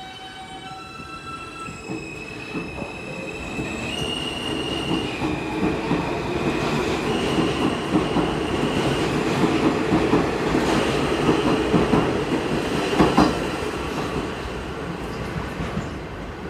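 R160 subway train pulling out and picking up speed: the traction motors' whine climbs in steps, with wheels clicking over rail joints. It grows steadily louder as the cars pass.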